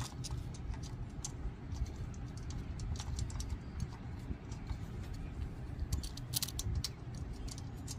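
Light metallic clicks and taps as the ignition coil is fitted back onto a 5 HP Briggs & Stratton engine and its mounting screws are started by hand. The clicks come thickest about six to seven seconds in, over a low steady rumble.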